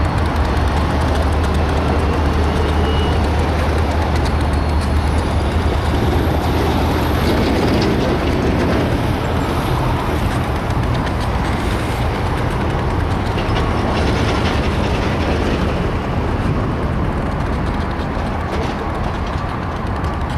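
Diesel-electric freight locomotives running in a light-engine consist as they roll slowly through the yard, a deep steady engine drone that eases off after several seconds as they draw away.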